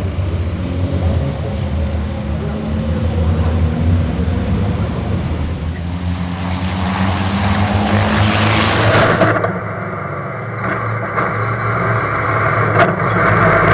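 Racing trucks' diesel engines running at speed on the circuit, swelling as trucks pass close about seven to nine seconds in. After a sudden cut, a single truck engine is heard from an onboard camera inside the cab, duller and muffled.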